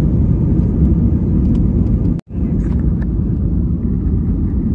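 Cabin noise of a jet airliner climbing just after takeoff: a loud, steady rumble of engines and rushing air. It cuts out for an instant about two seconds in, then carries on.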